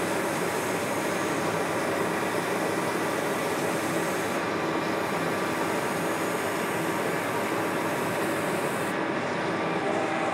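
A metal lathe running, with a strip of Scotch-Brite-type nonwoven abrasive held against the spinning cast bearing cap, giving a steady sanding hiss over the motor's running sound. The high hiss drops off about four seconds in and again near the end, as the abrasive pressure eases.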